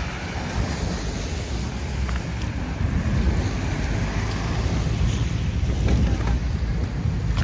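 Wind buffeting the microphone in a gusty low rumble, over the steady noise of street traffic.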